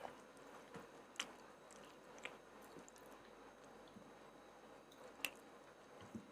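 Faint close-up chewing and wet mouth sounds of someone eating, with a few sharp smacks or clicks, one about a second in, another near two seconds and another past five seconds.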